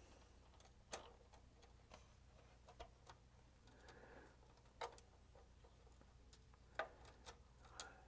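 Faint, scattered small clicks and taps of tiny screws and lock washers being fingered into place and started by hand in a radio's metal chassis, about a dozen at irregular intervals.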